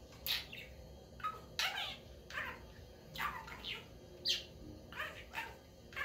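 Talking budgerigar chattering and mimicking human words in a string of short, high-pitched, rapid phrases, each sliding down in pitch.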